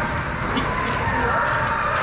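Hockey rink game ambience: a steady din of distant voices, with a few short sharp scrapes or taps.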